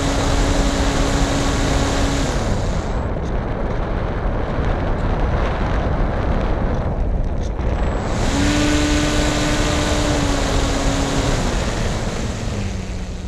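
Onboard sound of a radio-controlled model plane's motor and propeller, with heavy wind rush on the microphone. The motor's steady hum cuts out about two seconds in, leaving only wind noise as the plane glides low. It comes back about eight seconds in and drops to a lower pitch near the end.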